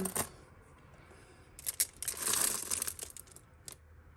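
Plastic bag crinkling for about a second and a half as hands rummage through costume jewellery, with a few sharp clicks of pieces knocking together.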